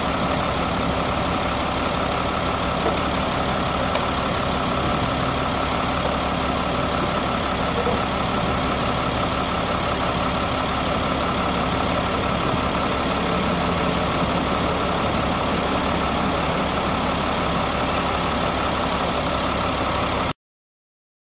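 2002 GMC C7500 dump truck's engine idling steadily, with a few faint ticks over it; the sound cuts off abruptly near the end.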